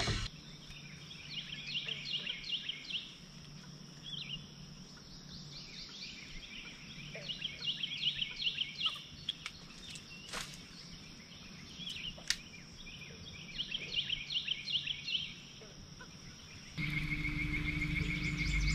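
Animal calls: groups of quick high chirps, five or six in a rapid run, repeated every few seconds over a faint steady high whine. Near the end the sound changes abruptly to a fast pulsing trill with a low hum beneath it.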